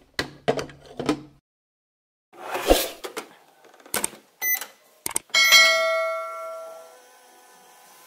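Plastic toy microwave being worked. A glass clinks as it is set inside, the door knocks shut, and the buttons click with a short beep. Then a bell-like ding rings out and fades over about a second and a half, followed by a faint steady tone.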